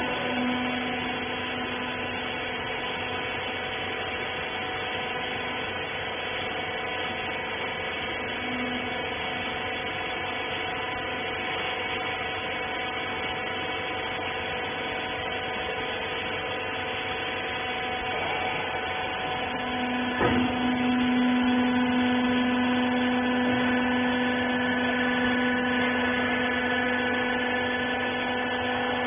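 Hydraulic rag baler's electric motor and pump running with a steady whining hum. About two-thirds of the way through a sharp click comes, and after it the hum grows louder with a stronger low drone.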